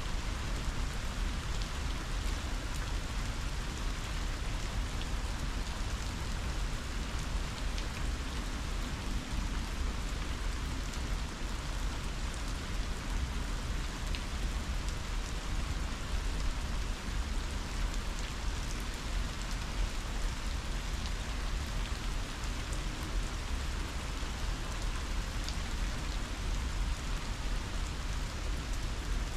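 Heavy rain falling steadily in a windstorm. Strong wind adds a low, fluttering rumble beneath the patter of the drops.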